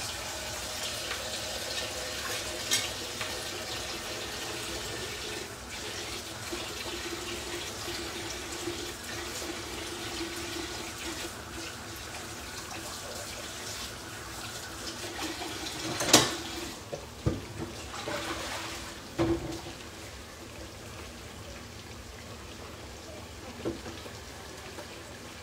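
Steady sizzle of thick aubergine slices frying in plenty of hot oil, with a few sharp clicks and knocks; the loudest knock comes about sixteen seconds in.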